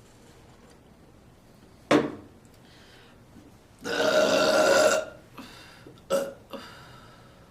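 A person burping: a short sharp one about two seconds in, then one long, loud burp lasting about a second, followed by two short ones near the end.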